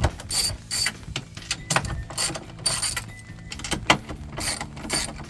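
Hand socket ratchet on an extension clicking in a series of short bursts as its handle is swung back and forth, backing out 10 mm nuts.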